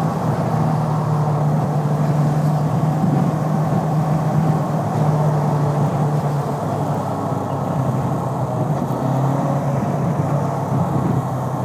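Bristol Venturi 500 motorcycle engine running under way, with wind and road noise over it. The engine note holds steady, dips lower about six seconds in, and climbs again near nine seconds.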